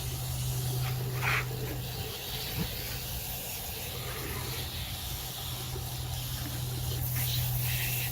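Water running steadily from a hose, rinsing out and filling poultry water dishes, with a brief higher sound about a second in.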